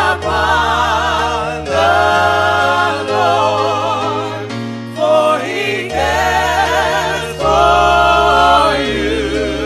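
Gospel music: voices sing held phrases with vibrato, each a couple of seconds long, over steady low notes that change with each phrase.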